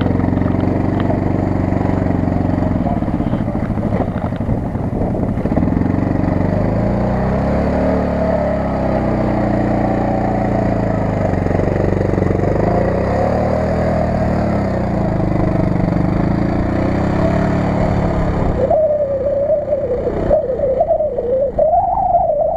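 CFMoto CF800-Z8 side-by-side's 800 cc V-twin engine revving up and down over and over as the buggy works through deep mud and water. About four seconds before the end the sound changes abruptly to a single wavering whine.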